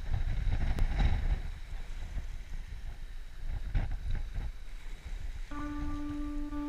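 Strong wind buffeting the microphone in gusts, a deep rumble. Near the end a held musical note comes in over it as music begins.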